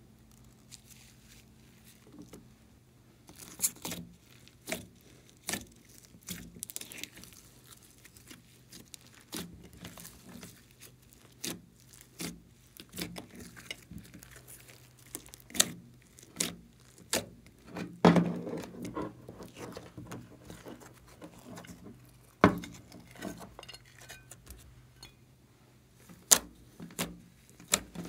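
Glossy slime being squeezed and kneaded by hand, giving irregular sticky clicks and small air-bubble pops, with a louder cluster of pops about two-thirds of the way through. A faint steady hum lies beneath.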